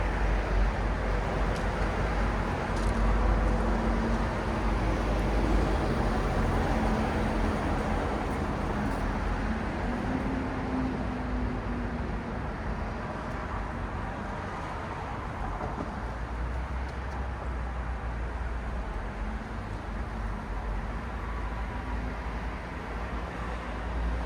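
City road traffic at night: a steady wash of passing vehicles, with tyres hissing and engines rumbling. An engine hum swells and fades between about four and twelve seconds in.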